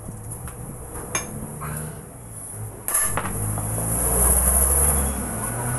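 Light metallic clinks of loose steel truck-axle parts being handled and tapped, a few in the first two seconds. About three seconds in, a louder steady low rumble like an engine sets in and carries on.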